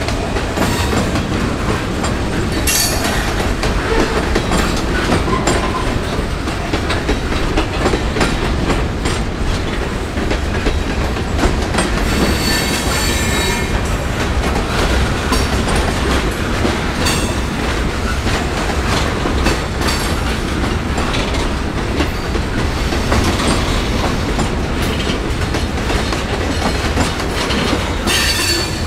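Train cars rolling past, wheels clattering steadily over rail joints and switchwork. Brief high-pitched wheel squeal comes in around the middle and again near the end.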